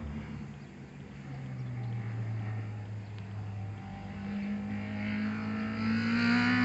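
Nissan March (K11) engine: its pitch drops in the first second as revs fall, holds steady for a few seconds, then climbs from about four seconds in and grows louder as the car accelerates.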